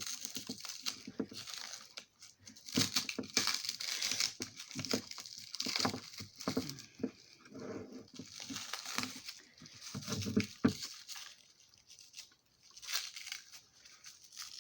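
Cellophane wrap crinkling and rustling in irregular bursts as it is pulled off a wrapped glass dish.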